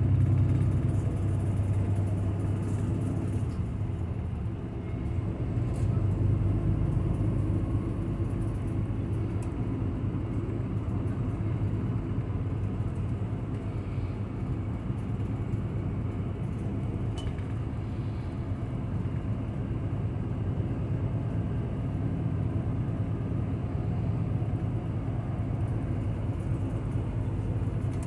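Route bus heard from inside the cabin while under way: a steady engine drone and road rumble. The loudness dips briefly about four seconds in and picks up again soon after.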